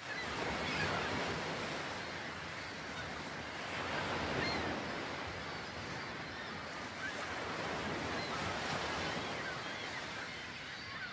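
Ocean surf: a steady wash of breaking waves that gently swells and eases.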